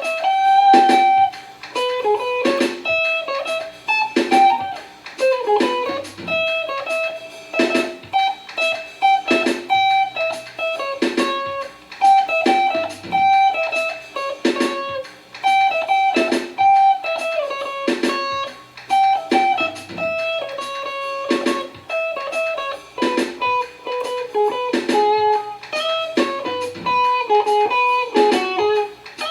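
Guitar playing a rhythmic phrase of plucked single notes and chords, each note struck sharply and ringing briefly.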